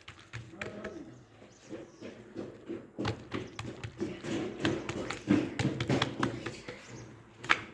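Soft taps and slaps of hands spreading and folding buttered, semolina-dusted meloui dough, with birds calling in the background.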